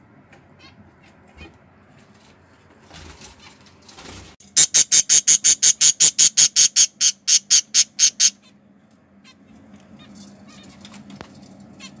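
Budgerigars calling: a rapid run of loud, sharp, high-pitched calls, about five a second, starting about four seconds in and lasting nearly four seconds, with faint small chirps before and after.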